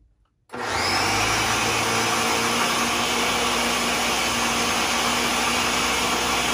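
Countertop blender switching on about half a second in and running steadily at full speed, pureeing a thick arugula and pistachio pesto with oil.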